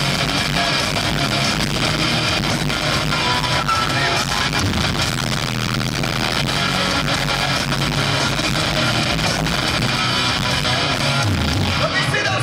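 Live rock band playing loudly in an arena, with guitars prominent, heard from the stands among the crowd.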